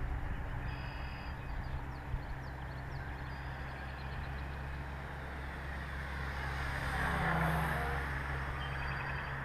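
Radio-control Piper J-3 Cub float plane flying at full throttle, its motor and propeller buzz swelling as it passes close about seven seconds in, then easing off.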